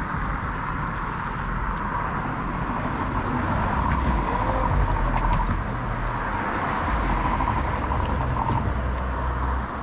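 Steady street traffic noise with a heavy low rumble.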